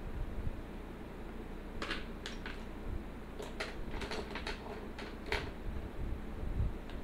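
A loose run of about ten light, sharp clicks and taps over a steady low hum.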